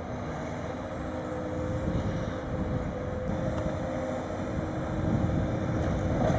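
Sennebogen 870M material handler running steadily, a low engine rumble with a thin steady whine above it.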